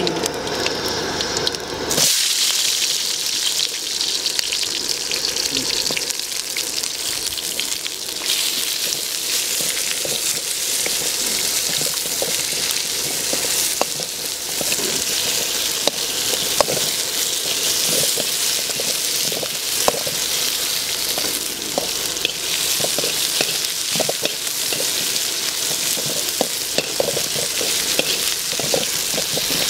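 Hot oil in a large metal kadai sizzling loudly, starting suddenly about two seconds in as sliced onions, garlic and green chillies go in, then frying steadily while a ladle scrapes and taps against the pan.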